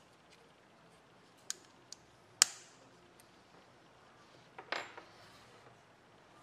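Sharp metallic clicks from the brass snap hook and ring of a leather key lanyard as it is handled, the loudest about two and a half seconds in, then a short clatter near five seconds as it is set down on a wooden bench.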